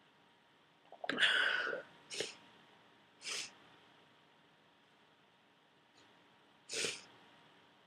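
A person with a head cold sneezes once, forcefully, about a second in, then gives three short sniffs spread over the following seconds.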